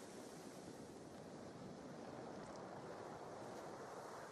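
Faint, steady outdoor background noise: an even hiss with no distinct events.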